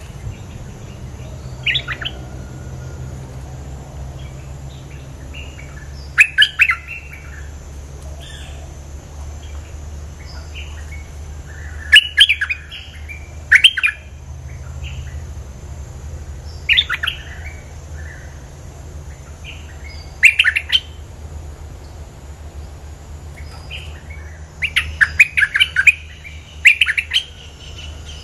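Bulbul (merbah lekir) giving short, loud call phrases every few seconds, several in quick succession near the end, used as a decoy call.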